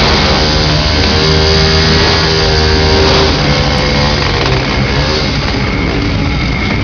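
A vehicle engine running and revving, mixed with loud music.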